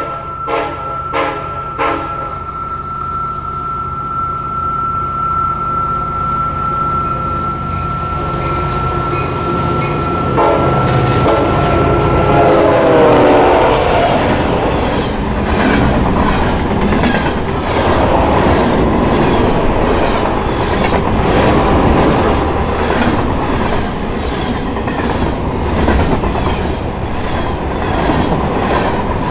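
A train approaching and passing: a steady high tone for the first dozen seconds, then the train horn sounds, loudest about thirteen seconds in. After that the wheels clatter over the rail joints in a steady, repeating rhythm as the cars go by.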